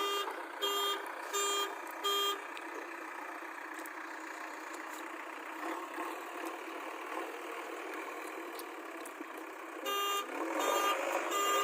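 Backhoe loader's reversing alarm beeping about every three quarters of a second over the machine's steady running noise. The beeps stop after about two seconds and start again near the end.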